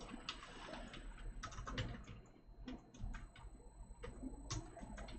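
Faint, irregular keystrokes on a computer keyboard.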